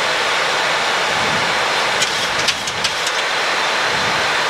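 Steady rushing noise on the flight deck of a Boeing 737 in flight, with a few short sharp clicks just past the middle.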